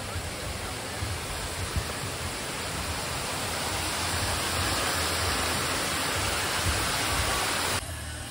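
Water splashing steadily from a small artificial rock waterfall into a pond. It grows louder over several seconds, then drops away suddenly near the end.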